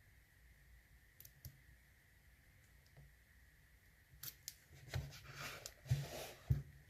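Lock picking on a pin-tumbler padlock: faint metallic clicks of the pick at the pins. About four seconds in, louder metal scraping and rattling with a few knocks as the tools and lock are handled.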